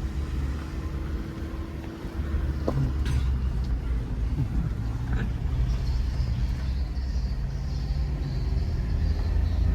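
Car running on a road, heard from inside the cabin: a steady low engine and road rumble.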